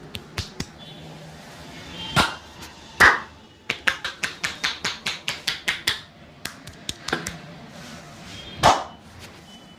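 Sharp hand slaps and taps of a percussive head and body massage. In the middle comes a quick even run of about five slaps a second, and there are three heavier smacks, the loudest about three seconds in.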